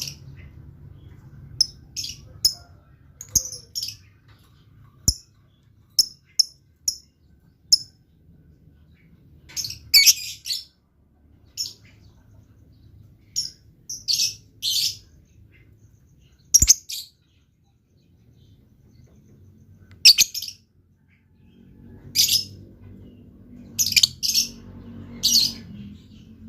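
Lovebird calling actively: short, sharp, high chirps at irregular intervals, with a few longer, harsher bursts of chattering in the second half.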